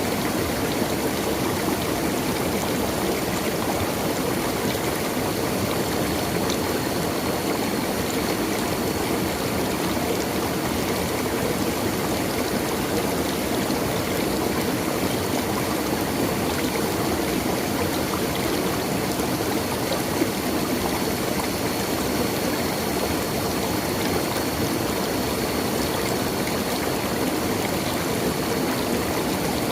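A natural stream's water running steadily, an even, unbroken flow with no pauses.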